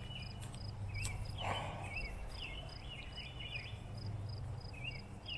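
Outdoor ambience: an insect, cricket-like, chirps steadily at about three pulses a second, with short chirps from small birds and a low steady hum of wind or distant noise. A brief soft rustle comes about a second and a half in.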